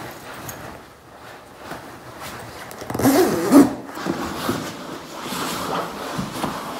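Rustling of a padded jacket being pulled on and handled, with a louder rasping burst about three seconds in.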